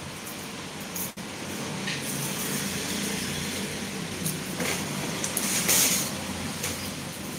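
Garlic bulbs handled and shifted about in a plastic basket: their papery skins rustle and they click against each other, with a louder rustle about five and a half seconds in. A steady low drone, like traffic, runs underneath.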